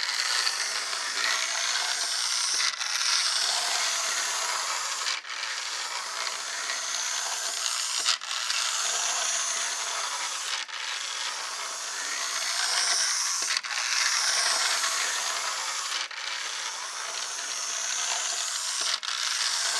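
1955 Lionel toy trolley running along its track under power, a steady whirring and rattling of its motor and wheels, broken by a brief dip about every two and a half seconds.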